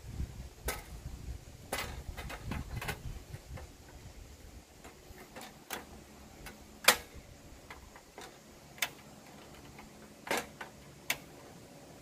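Irregularly spaced sharp clicks and knocks, about a dozen, the loudest about seven seconds in, over a low rumble that fades out in the first few seconds.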